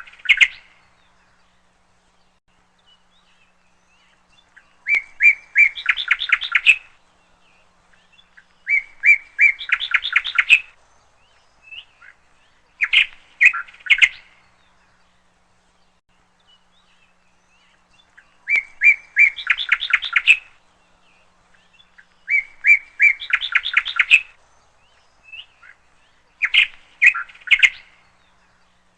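A bird singing the same short phrase over and over, about every four seconds: a few sharp chips followed by a fast, high trill.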